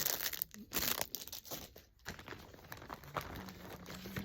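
Packaging crinkling and rustling as items are handled and unwrapped, loudest in the first two seconds.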